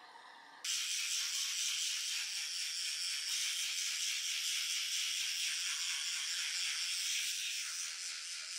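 Toothbrush scrubbing rapidly against teeth close to the microphone: a steady, loud, hissing brushing sound that starts abruptly about a second in. Faint sink sounds come before it.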